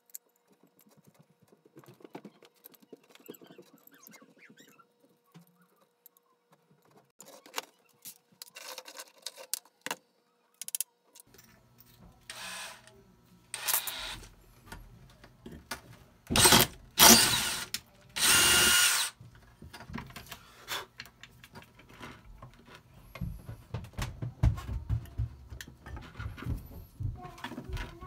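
Small hand tools and metal parts being handled at a workbench: light clicks and scrapes of a screwdriver on a metal bracket, then a few short bursts of a cordless power drill-driver about two thirds of the way through, each about a second long, the last with a steady whine. Quick light tapping and clicking follow.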